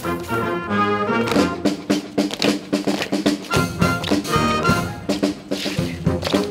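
Brass band music, with trumpets and trombones playing pitched notes over sharp, frequent percussive knocks.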